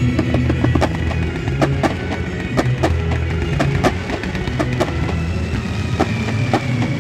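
Music with drums, over many irregular sharp pops and crackles from a fireworks display.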